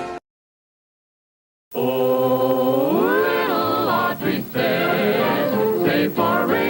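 Cartoon title music cuts off, followed by about a second and a half of dead silence; then a vocal group with orchestra starts singing a cartoon theme song, the voices gliding upward about three seconds in.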